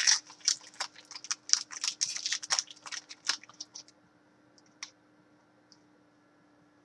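Trading-card pack wrapper crinkling and cards being handled: a quick, irregular run of small clicks and crackles for about four seconds, then only a couple of faint ticks.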